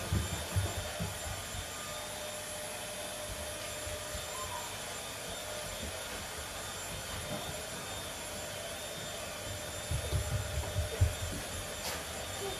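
A steady whirring background noise, with dull thuds from footsteps and dogs' paws on a hardwood floor. The thuds come at the very start and in a quick run about ten seconds in.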